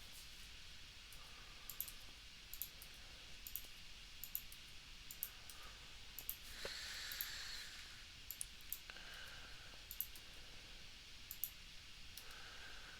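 Scattered clicks of a computer mouse and keyboard, irregular, about one a second. A soft hiss of about a second comes a little past halfway.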